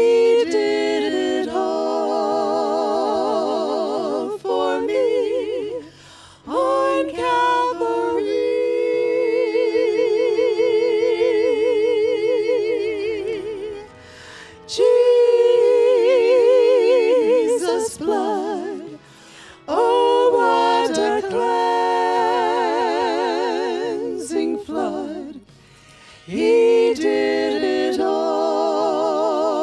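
Three women singing together unaccompanied through microphones, in long held phrases with vibrato and short breaths between them.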